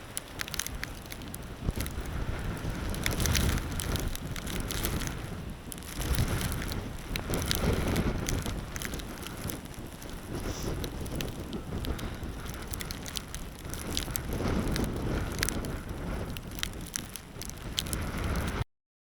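Gale-force wind gusts buffeting the microphone with a rumble that swells and eases, while wind-driven snow ticks against the camera throughout. The sound cuts off suddenly near the end.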